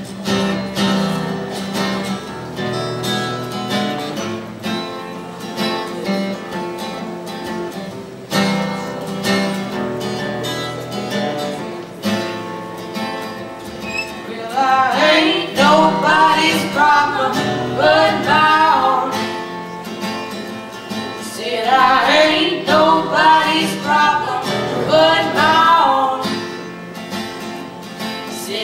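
Acoustic guitar strummed and picked as a song's intro; about halfway through a girl begins singing with it, pausing briefly before going on.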